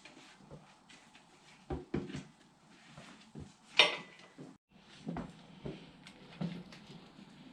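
Irregular clunks and knocks of tools and tire being worked on a manual No-Mar tire changer, with one sharp metallic clank a little under four seconds in.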